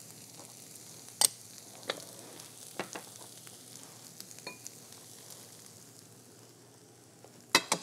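A faint sizzle from a skillet of vegetarian filling with marinara sauce, slowly dying down as the pan cools after the heat is switched off. Small glass bowls clink lightly a few times as they are picked up and stacked, with a quick cluster of louder clinks near the end.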